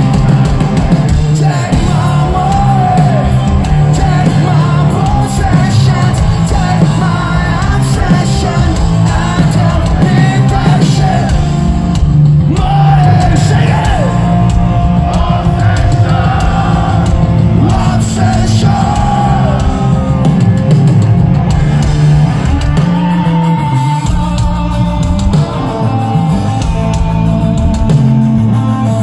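Live rock band playing loud: drums, bass and distorted guitars, with a lead vocal singing and yelling over them. In the last several seconds the singing gives way to the band alone.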